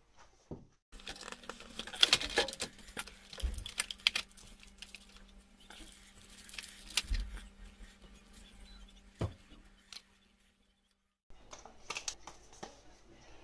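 Hands handling a Sony Xperia XZ2 cardboard retail box: rustling, light scraping and small taps as the box is opened and the phone is lifted out, with a faint steady hum under the first part. The sound cuts to dead silence for about a second near the end, then the handling resumes.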